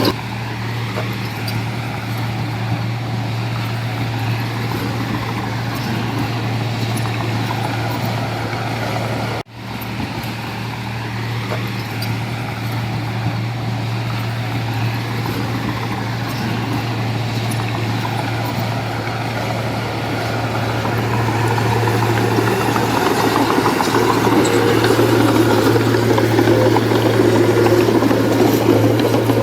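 Heavy diesel construction machinery running steadily with a constant low hum, briefly cutting out about a third of the way in, and growing louder over the last third.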